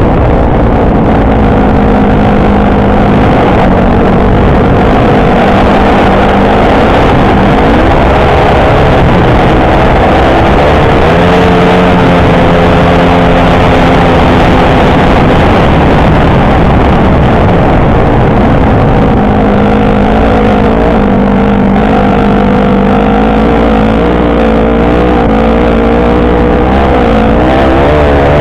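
Honda CRF150 dirt bike's four-stroke single-cylinder engine running hard, heard close up from the bike with wind rush on the microphone. Its pitch rises and falls repeatedly as the throttle is worked.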